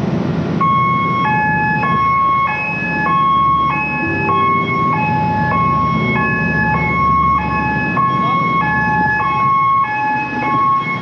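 Two-tone alarm sounder alternating between a higher and a lower note about every half second, repeating steadily, over the constant hum of ship's engine-room machinery.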